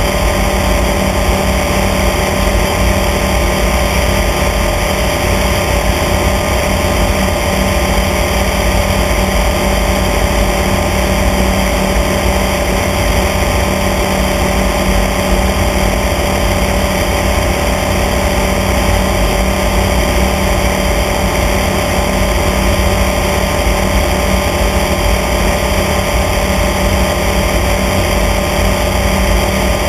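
Small propeller airplane's piston engine and propeller droning steadily in level cruise, over a constant rush of air.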